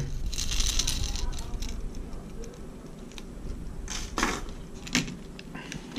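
Rustling and handling noise from fishing tackle being picked up and moved on a table. A rustle at the start, then scattered light clicks and taps.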